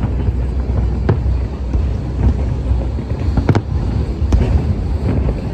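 Aerial fireworks display going off: a few sharp bangs over a continuous low rumble of bursts.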